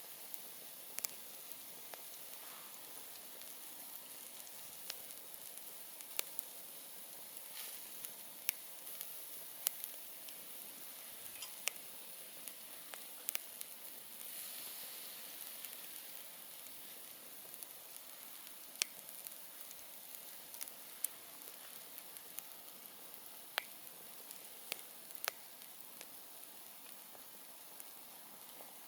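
Wood campfire burning: a steady soft hiss broken by irregular sharp crackles and pops from the burning wood, about one every second or two. The hiss swells briefly near the middle.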